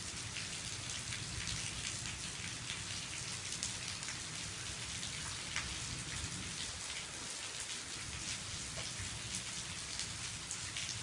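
Steady rain falling during a thunderstorm, with many scattered sharp drop hits.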